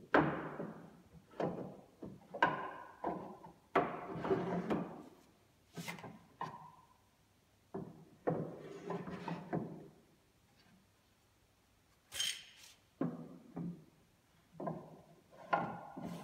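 Books being pulled out of and pushed back into the shelf slots of a prop bookcase: a string of irregular knocks and thunks, each followed by short sliding scrapes, with one sharper click about twelve seconds in.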